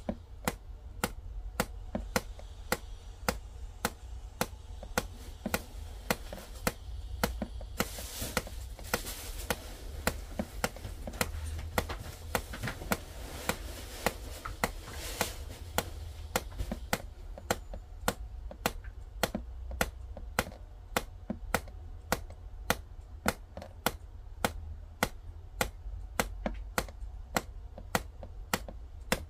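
A steady ticking of sharp clicks, about two a second. From about a quarter to halfway through, a soft rustling rises over it as a cat moves about.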